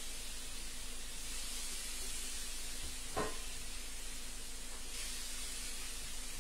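Yogurt-marinated chicken sizzling with a steady hiss on a hot electric contact grill, with a single light knock about three seconds in.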